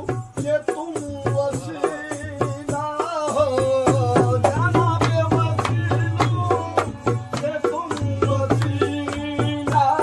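Qawwali music: a tabla beats a steady rhythm of about four strokes a second under a held melody line and singing.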